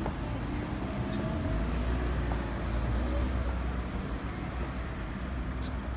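Urban road traffic: a steady low engine rumble from passing vehicles. It grows heavier about a second and a half in and eases off near the end.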